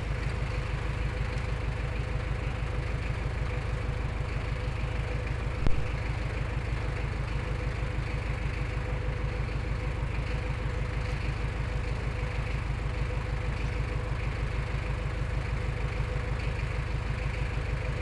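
Large engine idling steadily with a rapid, even low pulse, and a single sharp knock about six seconds in.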